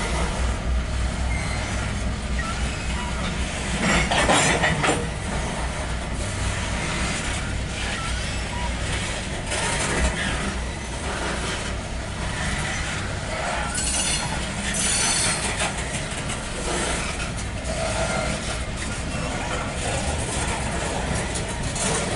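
Loaded coal train's hopper cars rolling past: a steady low rumble of steel wheels on rail with clattering, and brief louder, sharper bursts about four and fourteen seconds in.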